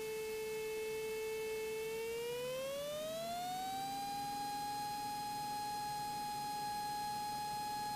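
A steady electrical whine in the cockpit audio feed, most likely alternator whine, that glides smoothly up to nearly double its pitch about two to four seconds in, then holds at the higher pitch. The rise follows the Cessna 182RG's engine being brought up to takeoff power.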